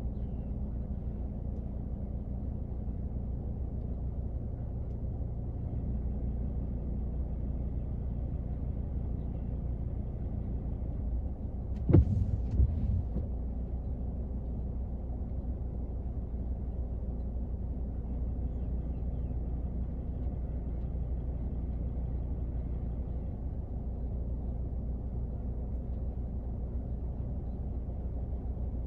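Rain falling on a car, heard from inside the cabin as a steady low rumble, with a sharp knock about twelve seconds in and a smaller one just after.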